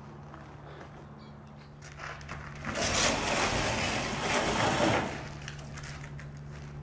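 Footsteps crunching over debris on the floor for about two and a half seconds, starting a little over two seconds in.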